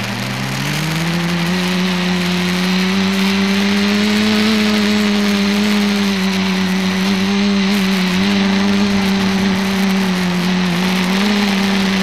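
Electric motors and propellers of a small multicopter (ETFD2 flying disc) droning in flight, heard from its onboard camera. The pitch climbs in the first second or so, then holds steady with small wavers.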